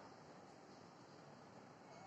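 Near silence: faint steady background noise.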